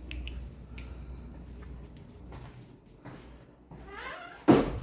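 A door swung open by hand: faint clicks and handling rumble, then a short creak from the hinges and a loud knock near the end.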